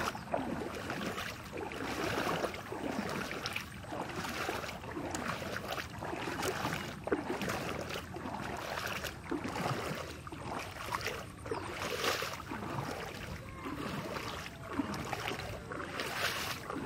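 Water splashing and sloshing in a rain-flooded paddy field, in uneven surges.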